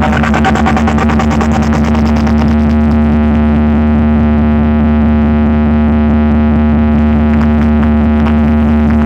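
Large DJ sound system playing a very loud, steady sound-check drone: a held low bass hum with a sustained higher tone over it, without melody or beat.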